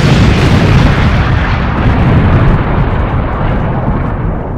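Loud, sustained rumble of an explosion, slowly dying away.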